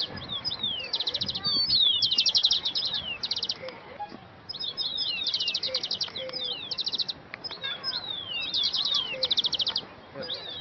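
A songbird singing the same song over and over, about every two seconds. Each song is a few falling whistled notes followed by a fast trill.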